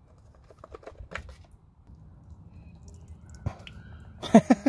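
Light clicks and knocks of hard plastic as a Jeep Grand Cherokee WJ fog light housing is handled and its bulb socket worked loose. A sharper click comes about three and a half seconds in. Near the end, a quick run of short, loud, pitched pulses begins, about six or seven a second.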